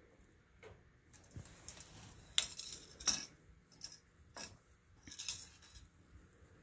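A handful of light, sharp clicks and clinks, the loudest about two and a half and three seconds in, from the dipstick being set into and drawn out of the snowblower's oil filler tube to check the oil level.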